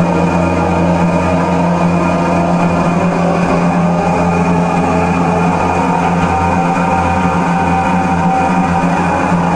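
Loud live electronic drone music played from a laptop: a steady deep hum with layered held tones above it, and a higher tone that comes in about six seconds in and fades out near nine seconds.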